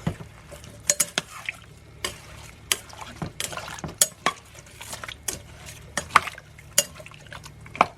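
A big spoon stirring a beef stew in a crock pot, clinking and knocking irregularly against the sides of the pot.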